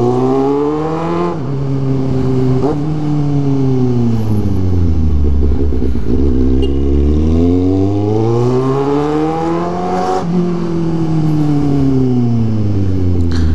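Kawasaki Z750's inline-four motorcycle engine revving hard under acceleration and deceleration. The pitch climbs, drops at a gear change just over a second in, climbs again, then falls as the throttle closes. It climbs once more from about six seconds, drops at another shift about ten seconds in, and falls away near the end.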